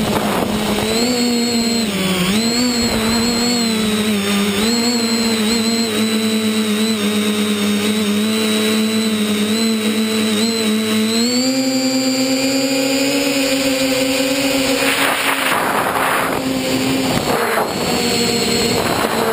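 Motor and propeller of a remote-controlled model aircraft heard from its onboard camera: a steady droning whine that wavers slightly with throttle and steps up in pitch about eleven seconds in. Rushes of air noise come in twice near the end.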